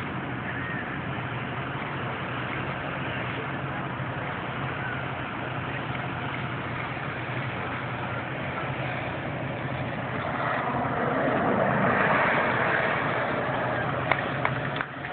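Twin P-120 gas turbines of a large model SR-71 Blackbird jet running with a steady hiss. About ten seconds in the sound swells as the jet passes close, its pitch falling quickly, then eases off again.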